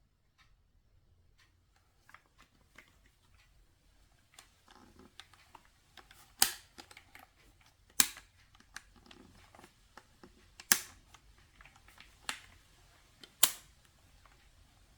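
Five sharp, loud clicks or snaps at uneven intervals of one to three seconds, with quieter handling and rustling between them, from the keyboard, mouse or their packaging being handled.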